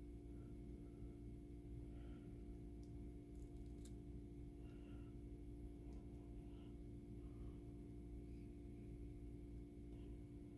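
Faint scissor snips as fine mesh is trimmed along a wire fence rail, a few soft cuts scattered through, over a steady low room hum.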